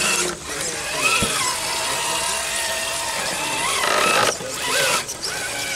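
Radio-controlled rock crawler truck's electric motor and gear drive whining as it crawls over rocks, the pitch rising and falling with the throttle and easing off briefly twice.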